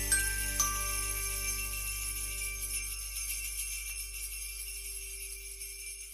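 Sleigh bells jingling over a held closing chord, with a couple of notes struck in the first second. The whole ending fades out steadily.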